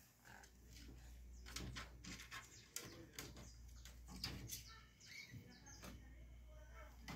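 Faint scuffling of kittens play-fighting on a tiled floor: light taps and scratchy clicks of paws and claws, with a few faint high chirping calls about five seconds in.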